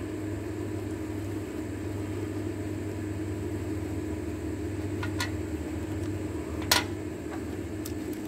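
Steady low mechanical hum with two sharp metallic clicks, the louder one about six and a half seconds in, as the battery hold-down and terminals of a riding mower are worked loose by hand.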